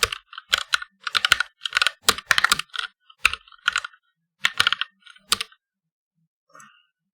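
Touch-typing on a mechanical keyboard with linear red switches: quick runs of keystroke clacks in bursts. The typing stops about five and a half seconds in, followed by one faint click.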